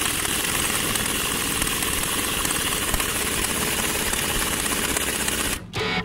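Impact wrench hammering continuously on a lug nut of a trailer wheel, a loud rapid rattle that stops abruptly about five and a half seconds in.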